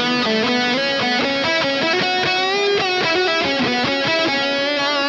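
Overdriven electric guitar lead, a Gibson Les Paul through an Ibanez Tube Screamer Mini and an Engl Fireball 25, run through an EarthQuaker Devices Dispatch Master delay and reverb pedal with every knob at noon. Sustained single notes with vibrato in the middle, carrying a light delay and reverb tail.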